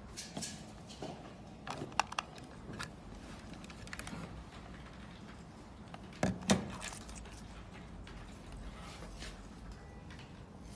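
Small hard parts being handled: scattered light clicks and knocks, with a pair of sharper clicks about two seconds in and a louder double knock a little past halfway.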